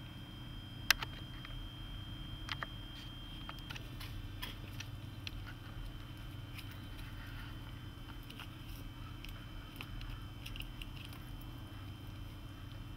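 Small dog chewing and nibbling with scattered small clicks and licking, with one sharper click about a second in and another shortly after.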